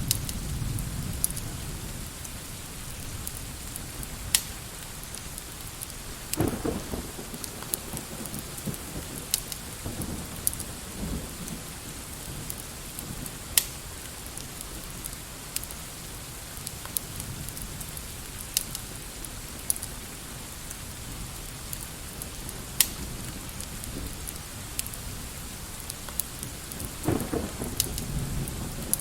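Ambience of steady rain mixed with a crackling fireplace, which gives sparse sharp pops. A low rumble swells twice, about six seconds in and near the end.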